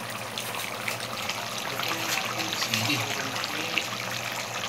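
Chicken curry sauce simmering in a pan: a steady bubbling, dotted with many small pops.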